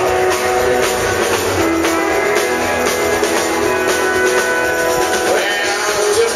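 Live country band playing: several strummed acoustic guitars and an electric guitar over a drum kit beat.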